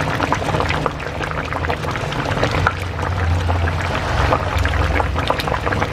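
A pot of tilapia in coconut-milk sauce simmering, with a steady crackle of bubbles popping over a low hum.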